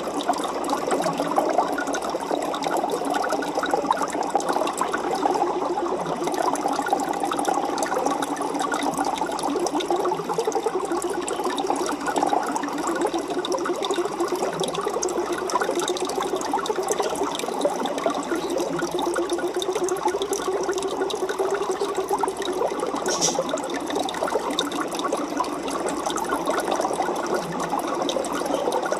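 Aquarium water bubbling and trickling steadily, a constant fine crackle of small bubbles and splashing.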